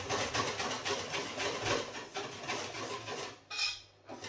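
Whisk scraping rapidly around a stainless steel bowl in quick, even strokes, beating hot milk into egg yolks to temper them for pastry cream; the strokes stop near the end.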